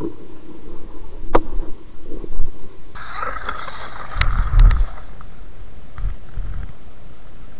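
Electric RC truck (WLtoys 12428, stock motor on a 2S LiPo) running over snow and frozen dirt, its motor whining under irregular knocks and clicks as it bounces and lands. A heavy low thump with sharp clicks comes about four and a half seconds in.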